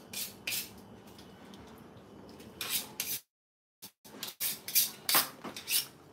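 Steel kitchen knife drawn again and again through a small handheld knife sharpener: short scraping strokes, about two or three a second, with a pause early on. The sound drops out completely for under a second just past the middle.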